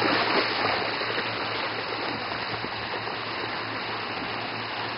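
Shallow water splashing and washing as a bulldog wades through it among small breaking waves, with a steady rushing wash. The splashing is louder in the first half-second, then settles to an even wash.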